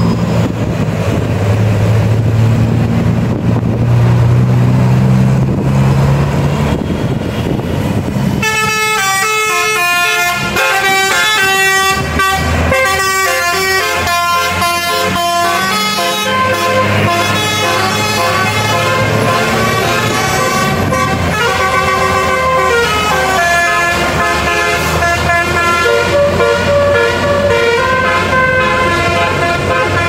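Tour bus engine running as the bus comes up the road, then from about eight seconds in a telolet musical air horn plays a quick multi-note tune, stepping from pitch to pitch over the engine for the rest of the time.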